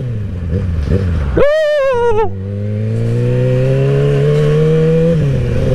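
2012 Kawasaki ZX-6R's inline-four engine accelerating, its pitch rising steadily, dropping once at an upshift about five seconds in, then climbing again. A short, loud, wavering high-pitched sound comes about a second and a half in.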